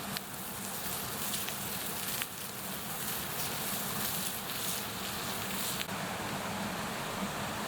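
Wood fire burning: a steady hiss with scattered sharp crackles and pops, the hiss softening a little near the end.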